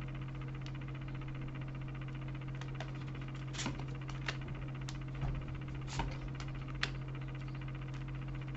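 Tarot cards being handled and laid on a table, giving a few faint, scattered clicks and taps over a steady low electrical hum.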